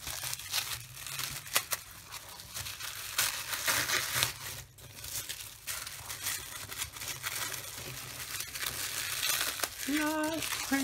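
Tissue paper crinkling, rustling and tearing as a wrapped gift is unfolded and pulled open by hand, in quick irregular crackles.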